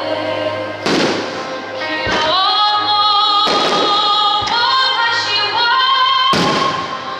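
Loud music with a sung melody, over which fireworks shells burst about five times, each a sharp bang with a trailing rumble.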